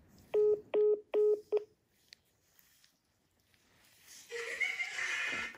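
Four short, identical electronic beeps in quick succession from a mobile phone, the tone of a call being hung up. Near the end comes a brief hissing rustle.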